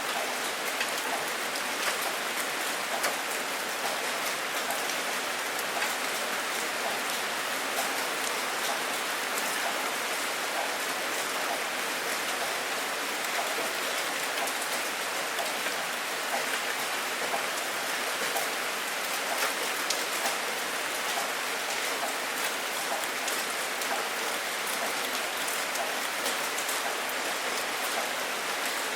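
Steady rain falling on a surface, an even hiss dotted with many small drop ticks.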